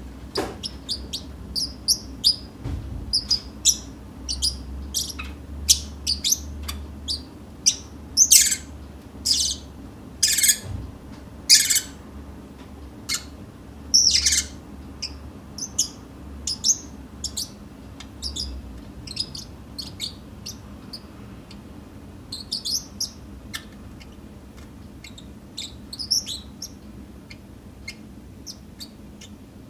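Pacific parrotlet chirping: a long string of short, high calls, with several louder sweeping calls between about eight and fifteen seconds in, then sparser chirps for the rest.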